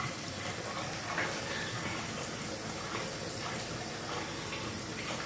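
Kitchen tap running steadily into a stainless steel sink, an even rushing of water.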